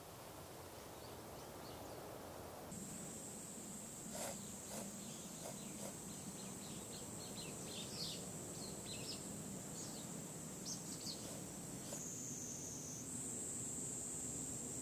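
Insects trilling: a steady, high-pitched continuous trill sets in about three seconds in and runs on, with scattered short chirps over it through the middle.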